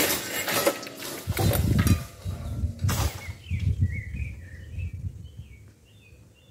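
Gusts of wind buffeting the microphone, a rumbling rush in uneven surges, for about three seconds. Then it eases and small birds chirp in short rising and falling notes over a faint low rumble.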